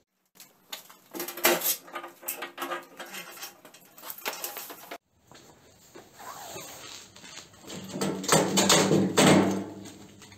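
Metal knocks and clanks from a 12-volt electric winch and its steel post mount being handled and lifted off. The clatter is loudest near the end, and it breaks off briefly about halfway through.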